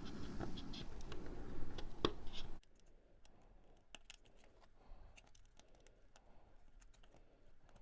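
Small clicks and scrapes of a SATA cable's plastic connector being handled and fitted to the connector inside a mini PC. The background hiss cuts off suddenly about two and a half seconds in, leaving only faint, scattered ticks.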